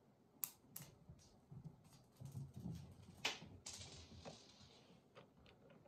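A cat's paws running across a ceramic tile floor: soft, irregular patter with a few sharp clicks, the loudest just over three seconds in.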